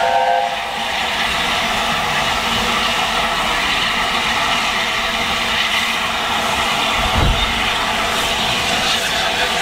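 Double-headed steam train, LNER A4 60007 Sir Nigel Gresley and BR Standard 70000 Britannia, pulling slowly away from a station, heard from a carriage window. A brief whistle sounds at the very start, then a steady rush of steam and rolling stock, with a single low thump about seven seconds in.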